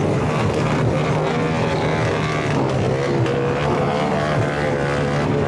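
Loud, distorted music blasting from a car sound system, with a steady deep bass line under a wavering melody.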